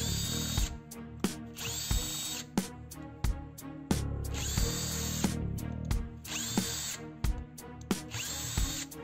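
Electric screwdriver run in about five short bursts, each a whine that rises as the motor spins up and then holds steady, as it drives screws out of a plastic gun body.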